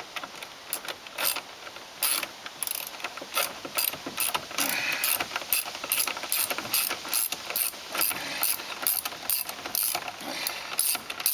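Ratchet wrench clicking in quick, even strokes, about two a second, as a bolt is backed out of a car's rear door.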